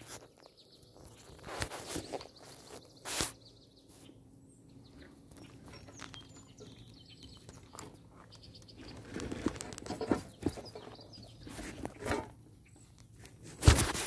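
Irregular rustling and bumping from a handheld camera being moved and tilted, with a few sharper bumps; the loudest comes near the end.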